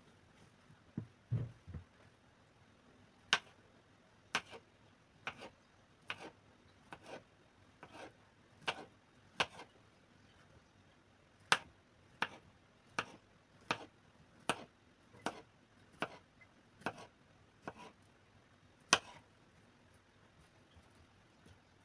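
Kitchen knife slicing peeled plantain into rounds on a plastic cutting board, each cut ending in a sharp tap of the blade on the board, roughly every three-quarters of a second. A few soft thumps come about a second in, before the cutting starts.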